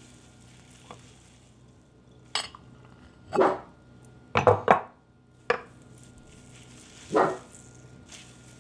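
A handful of short knocks and clinks as a bowl and a drinking glass are handled on a wooden table, including a quick run of three about halfway through.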